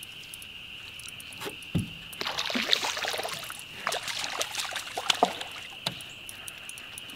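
Water splashing and sloshing for a few seconds, starting about two seconds in, over a steady high drone of insects.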